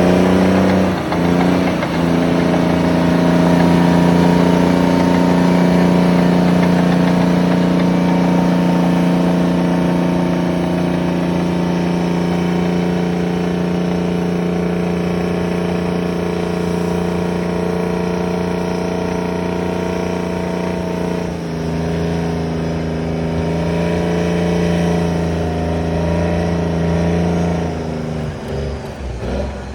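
Terex 82-20 crawler bulldozer's diesel engine running hard and steady under load. The engine note dips briefly about a second in, steps lower about two-thirds of the way through, then falls and picks up again near the end as the engine speed changes.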